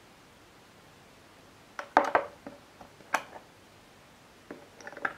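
A small clear plastic cup and its lid being handled on a tabletop: a loud cluster of sharp plastic clicks and knocks about two seconds in, a single click about a second later, and a few lighter taps near the end.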